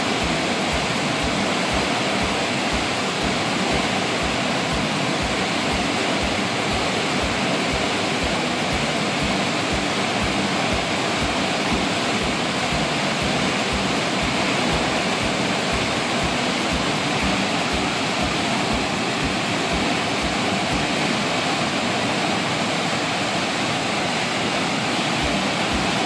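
Muddy high water rushing and churning over rocks in whitewater, a steady, unbroken rush.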